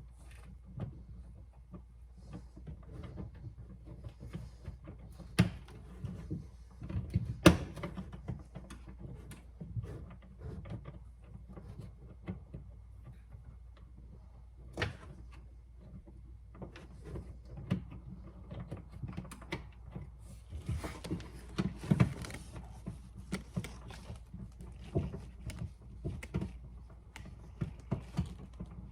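Scattered clicks, taps and knocks of hands and tools working inside an open car door, reconnecting the door lock's lever rod. There are a few sharper knocks, the loudest about seven seconds in, and a stretch of rustling a little past two-thirds through.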